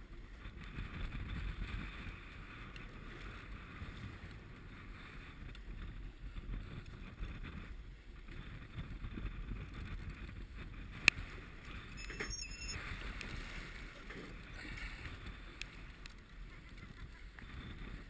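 Steady rumble of wind and choppy water around a sport-fishing boat at sea. A single sharp click sounds about eleven seconds in.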